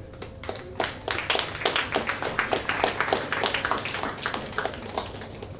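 A small audience applauding: quick, separate hand claps that start about half a second in and die away near the end.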